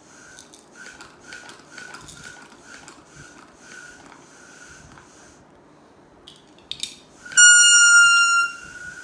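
Plastic toy horn blown by mouth: a string of soft, breathy toots, then, about seven seconds in, one loud, steady toot lasting about a second that dips slightly in pitch and fades out.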